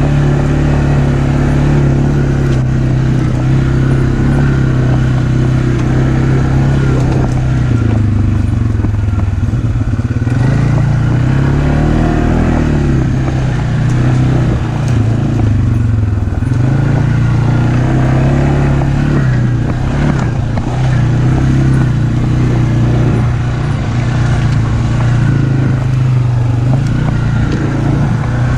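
ATV engine running, its pitch rising and falling a few times through the middle as the throttle changes.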